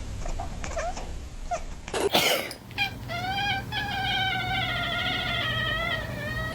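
A sudden loud burst about two seconds in, then a cat's wavering yowl: a short meow followed by one long drawn-out call of about two and a half seconds.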